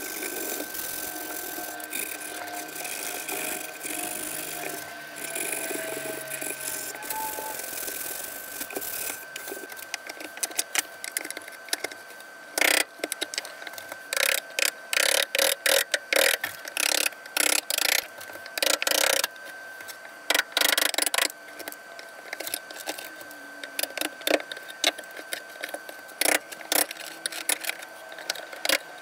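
Hand sanding of cypress with a folded sheet of sandpaper, a steady rubbing; then, from about ten seconds in, a metal tool scraping and picking loose, decayed wood out of a knot void in short, irregular strokes. A faint steady high whine runs underneath.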